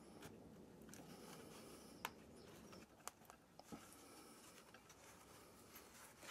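Faint handling of the two halves of a broken lime wood bowl being fitted together: wood rubbing and scraping, with a few sharp clicks as the pieces knock, the loudest about two seconds in.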